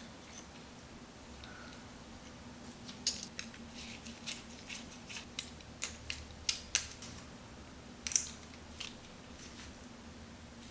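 Light, irregular clicks and taps of small hard objects being handled, about a dozen over several seconds, the loudest near the end, over a faint steady hum.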